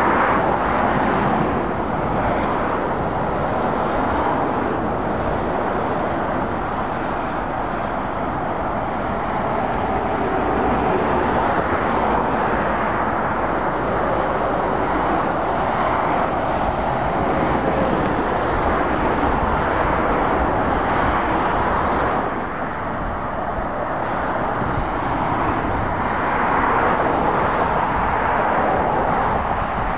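Motorway traffic: heavy lorries and cars passing at speed, a steady rush of tyre and diesel engine noise that dips briefly about two-thirds of the way through.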